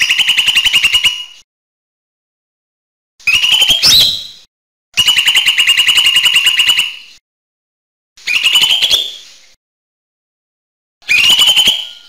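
Cucak hijau mini (lesser green leafbird) calling in fast trills of evenly repeated notes. The trills come in five separate bursts of one to two seconds each with short silences between, and several end in a quick rising note.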